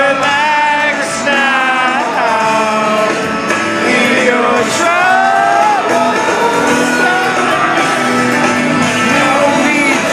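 Live rock band heard from the audience: a male lead voice singing over acoustic guitar and the band, with audience members close by singing and shouting along.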